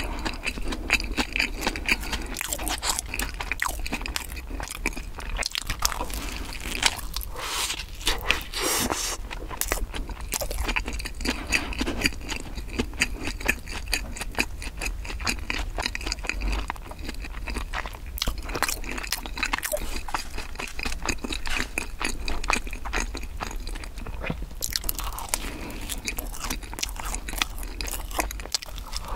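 Close-miked chewing of crusty bread: continuous moist crunching and smacking as a person chews, with fresh bites along the way.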